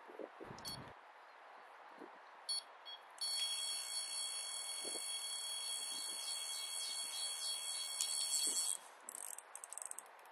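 Electronic carp bite alarm on a run: a couple of short beeps, then about a second later a continuous tone of several fixed pitches lasting about five and a half seconds as a fish takes line. A patter of short clicks and rattles follows as the rod is lifted from the rests.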